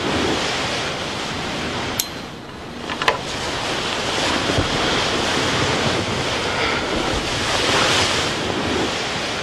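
A steady rushing noise like wind, swelling a little about halfway through and again near the end, with two sharp clicks about two and three seconds in.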